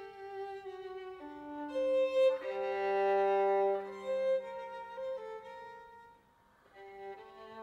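Violin playing a slow passage of long bowed notes. It swells to its loudest on a note held for over a second about three seconds in, then fades almost to silence for a moment before playing resumes near the end.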